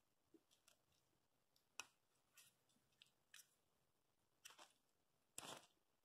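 Near silence, with a few faint scattered clicks and taps of small parts being handled: a short piece of plastic hose and locking pliers.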